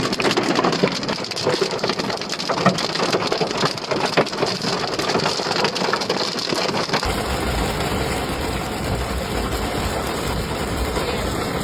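Hail and heavy rain pelting down, a dense patter of many small hits. About seven seconds in the sound changes to a steadier downpour with a low rumble underneath.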